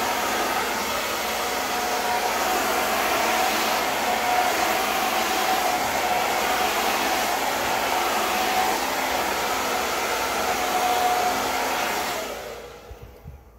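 Handheld hair dryer blowing steadily with a faint steady whine, its sound dying away near the end.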